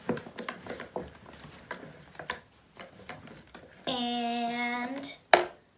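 Spoon stirring thick, freshly coloured glue slime in a plastic bowl: soft scraping and clicking, then a steady pitched squeak or hum lasting about a second, followed by one sharp knock.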